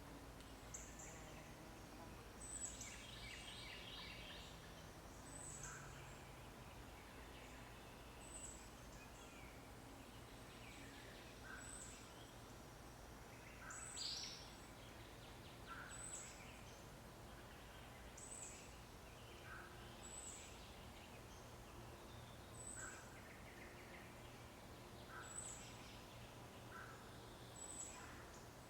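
Quiet outdoor ambience with a faint, short, high-pitched bird call repeating about every two seconds, and a brief burst of chirping about three seconds in.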